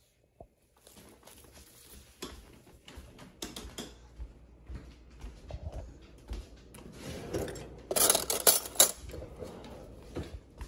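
Clinks and clatter of kitchen things being handled: scattered light clicks and knocks, with a loud run of sharp clattering about eight seconds in.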